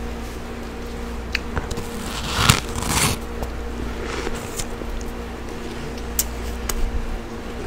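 Freezer frost being bitten and chewed close to the microphone: two louder crunches about a third of the way in, then scattered sharp crisp crackles. A steady low hum runs underneath.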